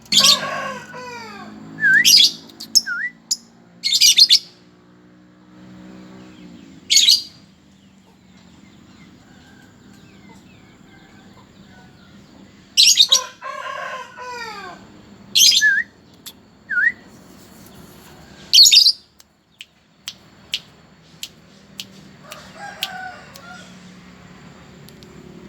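Two lovebirds giving short, shrill chirps in sharp bursts, answering whistling. The chirps come in clusters near the start and again around the middle, with quieter gaps between.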